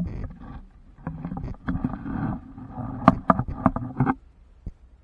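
Water sloshing and splashing around a camera at the waterline, with irregular knocks and bumps. It dies away about four seconds in, leaving a few faint clicks.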